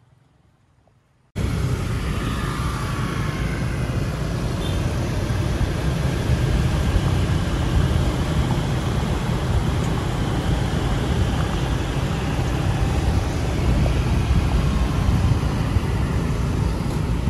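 Steady rush of wind and traffic noise from a car moving through city traffic. It cuts in abruptly about a second in, after near silence.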